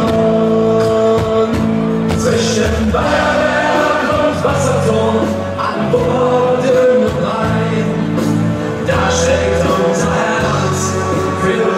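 Football crowd in a stadium singing the club anthem together, many voices in long held notes.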